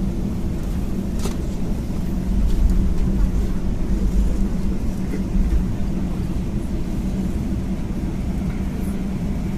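Steady low rumble and hum inside a jet airliner's cabin as it taxis after landing. A brief click about a second in.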